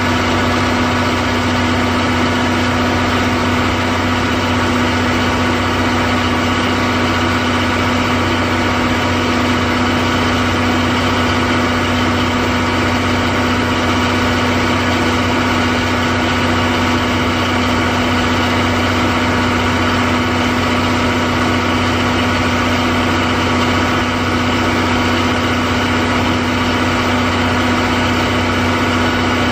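The underfloor DMF15HZ-G diesel generator engine of a JNR 14-series Suhafu 14 passenger car running steadily at constant speed, making the train's service power for air-conditioning and lighting. It gives an even, loud drone with a strong steady hum and no change in pitch.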